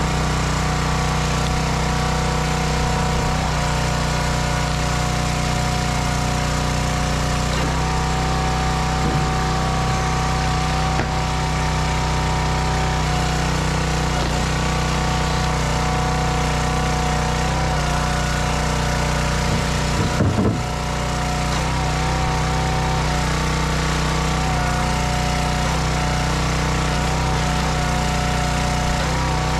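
Small engine of a hydraulic log splitter running steadily. It turns briefly louder and rougher about two-thirds of the way through.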